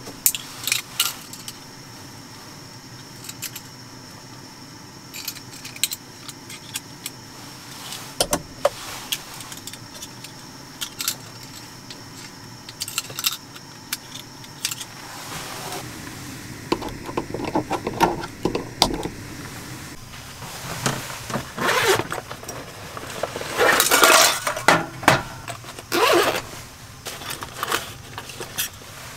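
Small metal camping gear being handled inside a car: scattered clicks and clinks as items are clipped onto and taken from fabric organizer pouches. The handling grows busier and louder about halfway through.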